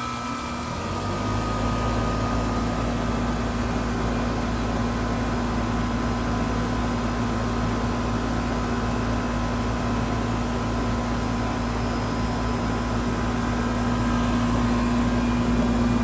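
Carrier 38YCC heat pump outdoor unit running steadily: a constant electrical hum with a low mechanical rumble that comes up about a second in and then holds level.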